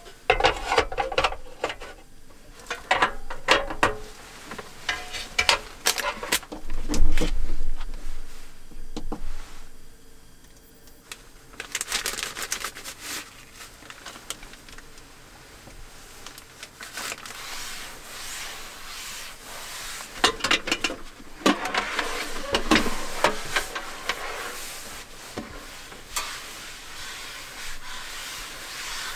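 Plastic bags and packets crinkling and rustling as they are handled, with a run of clicks and knocks of things being set down on a table, the loudest about seven seconds in.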